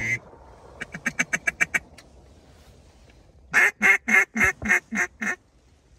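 Mallard hen quacking in two runs: a quicker, softer run of about eight quacks, then, a couple of seconds later, a loud run of seven quacks that tapers off note by note, in the falling cadence of a hen's greeting call.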